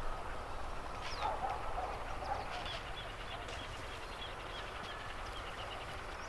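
Birds calling: a few lower calls about a second in, then a run of short, evenly spaced high chirps through the middle.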